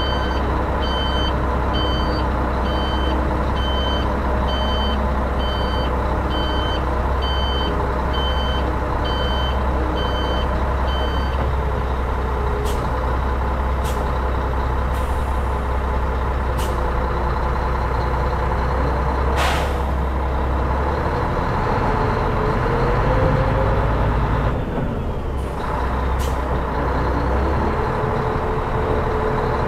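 Scania R420 truck's diesel engine running at low speed while its reversing alarm beeps about once a second. The beeping stops about a third of the way in. A few short sharp hisses of air follow, and the engine note rises briefly about two-thirds in.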